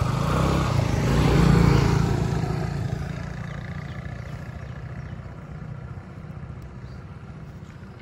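A small engine running with a steady low hum. It is loudest about a second and a half in, then fades steadily away.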